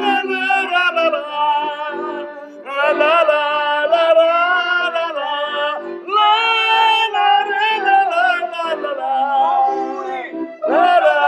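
Men and women singing a lively song together to a piano accordion, which plays a pulsing chord accompaniment under the voices, with short breaks between sung phrases.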